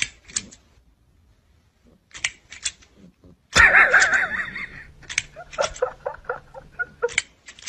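Sharp plastic clicks and snaps from a green crocodile-jaw grabber toy being snapped at a cat, in several quick runs. About three and a half seconds in, a loud wavering cry breaks in for over a second, followed by more clicking.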